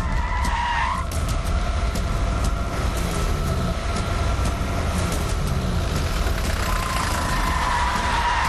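Off-road jeep engine running hard as it drives over rough, rocky ground, with tyres skidding and churning. A steady whine runs over it.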